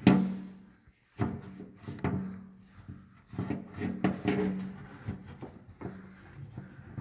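Paper towel rubbing and scuffing over the grimy timer area at the front of a Ford Model T engine, with several knocks and clunks as the hand bumps the metal parts, the loudest right at the start.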